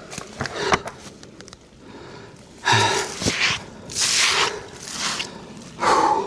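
A man breathing hard in heavy gasping breaths about once a second, winded from the work of felling a tree.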